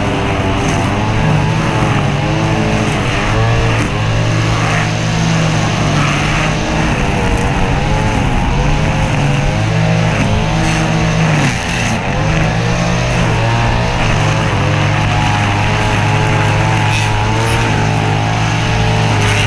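Stihl two-stroke trimmer running at high revs, its engine pitch rising and dipping as it cuts along the fence line.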